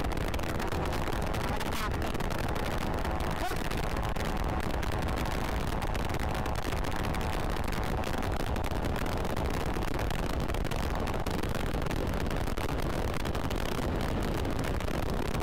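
Steady wind rush buffeting the microphone on a moving Kawasaki KRV 180 TCS motorcycle, with road and engine noise underneath.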